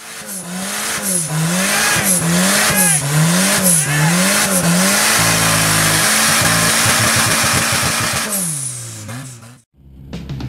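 An engine revved in quick blips, its pitch rising and falling about once a second, then held steady at high revs for about three seconds before dropping away and cutting off abruptly.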